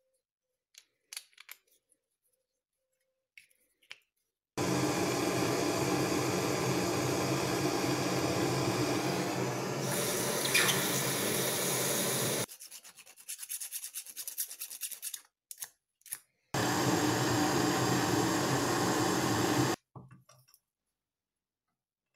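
Handheld gas-cartridge blowtorch flame burning with a steady hiss, twice: once for about eight seconds starting some four seconds in, then again for about three seconds, each starting and stopping abruptly. The flame is heating a newly made steel lathe center to temper it to a blue-purple colour.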